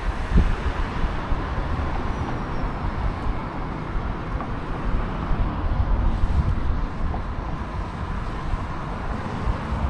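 Outdoor noise: a low, gusty rumble of wind on the microphone over the sound of road traffic.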